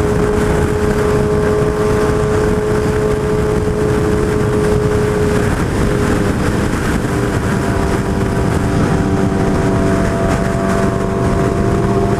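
Suzuki Hayabusa four-cylinder sportbike engine cruising at freeway speed: a steady drone under heavy wind and road rush. The engine note shifts briefly about halfway through.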